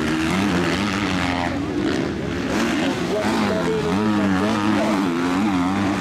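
Several motocross bikes' engines revving, their pitch rising and falling constantly as they ride the track.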